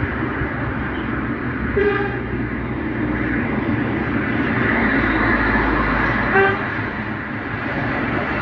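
Road traffic passing: a steady rumble of engines and tyres that swells about five seconds in. Two short car-horn toots sound, about two seconds in and again about six seconds in.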